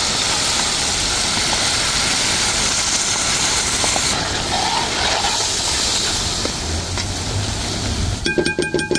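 Masala of tomato, onion and curry leaves sizzling and bubbling in oil in a large pan, a steady hiss. A short buzzing tone comes in near the end.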